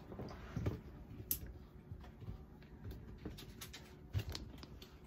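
Handling noise at the recording device: soft rustles and scattered ticks, with dull thumps about half a second in and just after four seconds and a sharp click in between.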